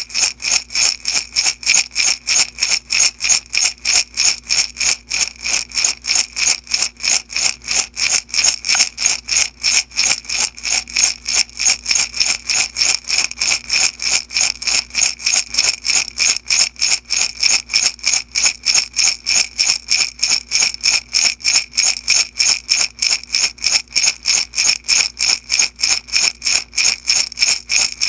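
Beads shaken back and forth in a glass jar in a steady, even rhythm of about four shakes a second, a bright rattling clatter against the glass.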